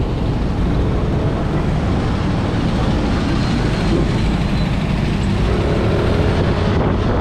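Yamaha scooter running at low speed in street traffic, heard from the rider's seat as a steady engine and road noise.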